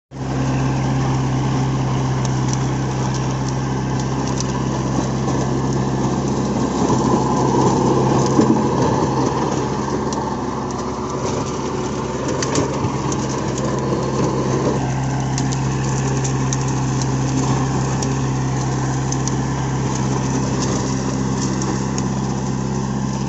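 Kubota MU4501 tractor's four-cylinder diesel engine running steadily under load, driving a rotavator that churns through dry soil, with scattered crackles. The sound swells a little about a third of the way through.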